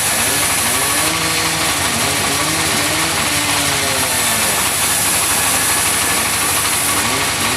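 Sawmill machinery running steadily while sawing wood, a motor's pitch rising and falling every second or two over a constant mechanical clatter.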